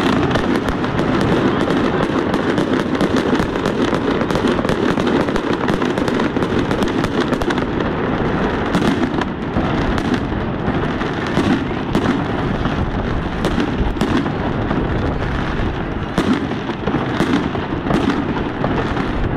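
Fireworks display: aerial shells and fountains of sparks going off in a dense, continuous barrage of bangs and crackling. In the second half it breaks into separate sharp bangs about once or twice a second.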